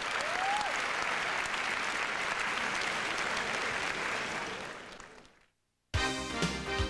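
Arena crowd applauding, fading out about five seconds in; after a brief silence, music with a beat starts near the end.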